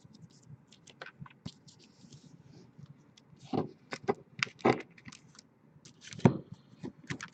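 Trading cards being handled and shuffled: scattered light clicks and short scrapes, with a few louder ones in the second half.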